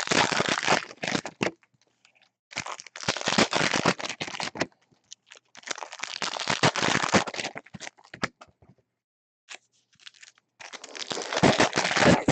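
Foil trading-card pack wrappers being torn open and crinkled by hand, in four crackly bursts of a second or two each with short pauses between.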